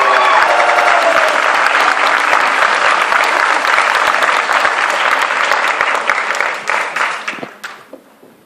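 Audience applauding steadily, then thinning out and dying away about seven to eight seconds in. A last held sung note from the choir fades out under the clapping at the very start.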